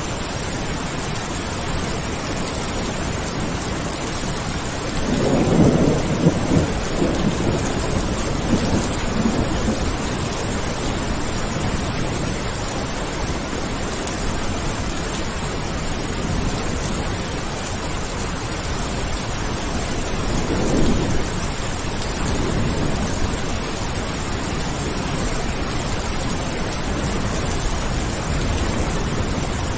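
Steady rain with two rolls of thunder. The first rumble swells about five seconds in and rolls on for several seconds; a weaker one follows about twenty seconds in.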